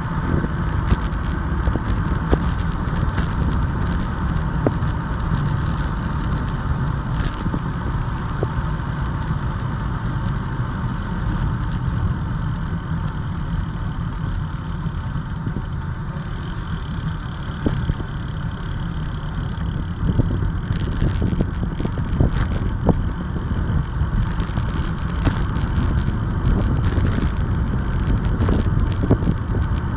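Wind rushing over the microphone of a camera riding on a moving bike: a steady low rumble with scattered small rattles and knocks from the mount and the road surface.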